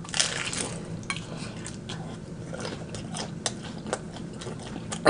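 Close-up eating sounds: a bite into a crisp, deep-fried, double-wrapped egg roll, with a crunchy crackle right after the start, then chewing that gives off many short crackling clicks from the fried wrapper.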